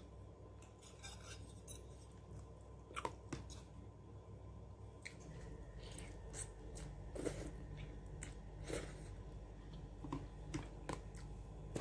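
Faint, close-up eating sounds of someone eating noodles: chewing and mouth noises with scattered short clicks and taps, more frequent in the second half.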